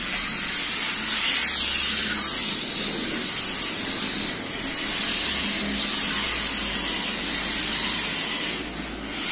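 Wltoys mini RC drift cars running on the track: a steady high hiss of small motors and tyres sliding that swells and fades several times as the cars pass.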